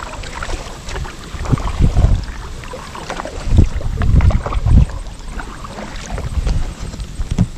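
Kayak on a river: paddle splashing in the water, with irregular low thumps and knocks against the hull, the loudest a few in the middle.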